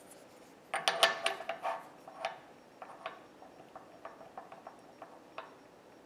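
Steel Starrett X block (V block) rocking on a lathe bed's V-way, metal clinking on metal: a quick cluster of clicks with a short ring about a second in, then lighter ticks. The rock is the sign that the block is not quite square, which the owner guesses might be 89 and a half degrees.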